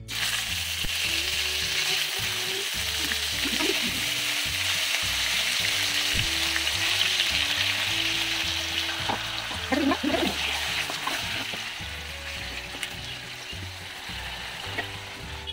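Yogurt-marinated chicken pieces frying in hot oil in a nonstick kadai: a steady sizzle, stirred with a wooden spatula, easing a little near the end.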